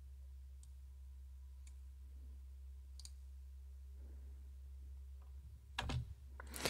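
Low, steady hum of a running computer with a few faint mouse clicks, the two loudest near the end.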